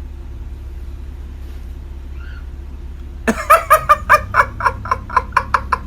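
Low steady hum of a car cabin at idle. About three seconds in, a run of short, sharp vocal bursts comes in quick succession, about four or five a second, like laughing.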